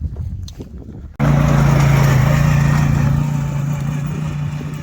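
Quad bike (ATV) engine going by close and fast, starting abruptly about a second in with a loud, steady engine note that slowly fades. Wind on the microphone before it.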